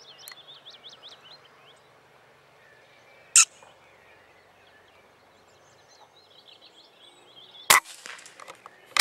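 Two sharp air-rifle shots, one about a third of the way in and one near the end, over faint, repeated birdsong chirping.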